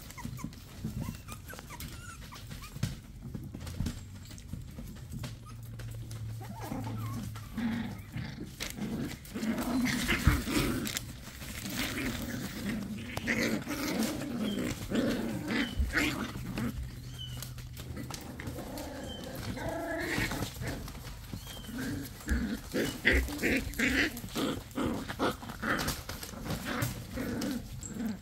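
Seven-week-old puggle puppies playing together: short play growls and little squeaky yips in irregular bursts, coming thicker and louder in the second half.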